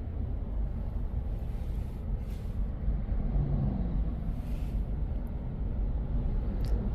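Car heard from inside its cabin in slow traffic: a steady low rumble of engine and road noise.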